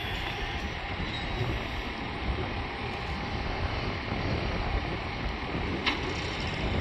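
Wind buffeting the microphone in a low, uneven rumble, over the steady background hum of an airport apron with aircraft and ground vehicles at the gates.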